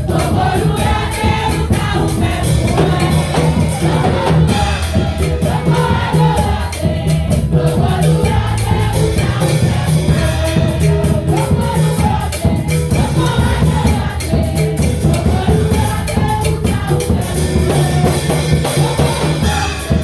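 Gospel worship music: singing voices carrying a melody over bass, drum kit and tambourine-like percussion, at a steady loud level.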